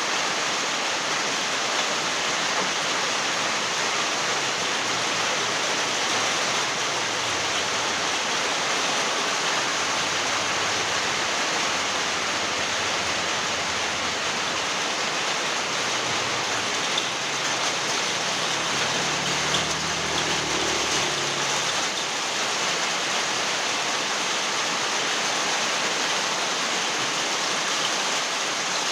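Heavy rain pouring down steadily, a dense even hiss with no break.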